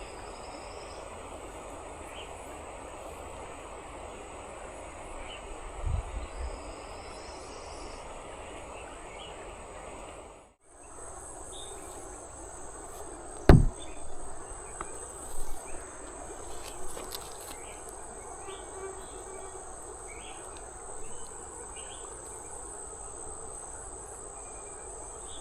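Insects keep up a steady, high-pitched drone over the rush of river water. A few knocks break in, the loudest a thump about halfway through.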